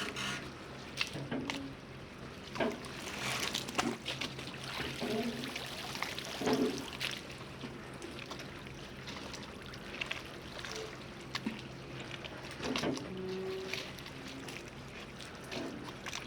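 Harbour ambience: water lapping and trickling against moored boats and the quay, with irregular knocks and short low squeaks, over a steady low hum.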